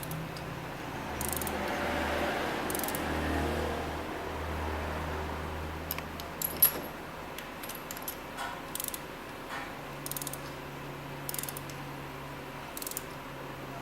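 Scattered metallic clicks and clinks of hand tools being worked on metal, with one sharper click about six and a half seconds in, over a low steady hum.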